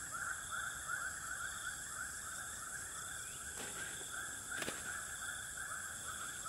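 Dusk chorus of calling insects: a steady high buzzing with a fast, repeated chirping about four times a second. Two faint clicks come about halfway through.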